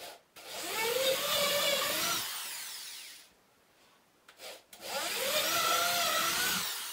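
Electric drill with a twist bit boring two holes through a wooden board, one after the other. Each burst of motor whine lasts two to three seconds and wavers in pitch as the bit cuts, with a short pause between the holes.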